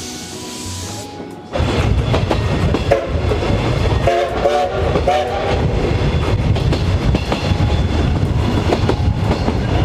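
Background music ends about a second and a half in, and then the steam train's running noise takes over: coach wheels clattering over the rails. About four seconds in, the C58 steam locomotive's whistle sounds in two short blasts.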